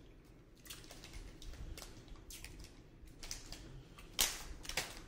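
Plastic snack wrapper being handled and opened: irregular crinkles and crackles, the loudest about four seconds in.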